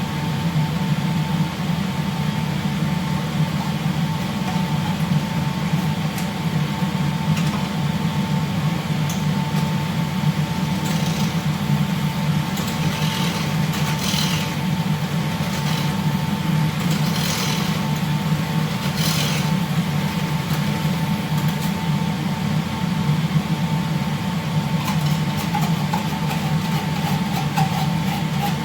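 Steady low drone of a ship's engines and machinery, with a thin steady whine running through it. A few short hissy scrapes come around the middle.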